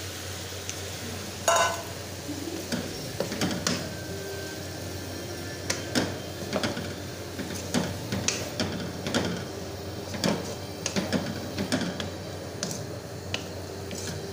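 Spoon stirring chopped vegetables and fried chunks in a metal frying pan, with irregular clinks and scrapes against the pan. The loudest knock comes about a second and a half in, as the vegetables are tipped in from a steel bowl.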